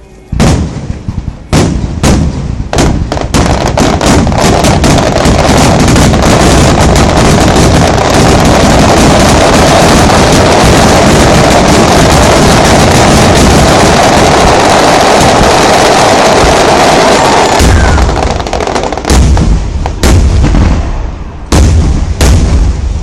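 Starmine fireworks barrage: shells bursting in quick succession, building into a continuous wall of overlapping bangs and crackle, then several separate heavy booms near the end.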